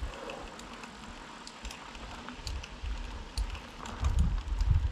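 Mountain bike rolling over a sticky, wet black-soil dirt road: irregular light clicks and crackles from the tyres in the mud. Gusts of wind rumble on the microphone in the last second.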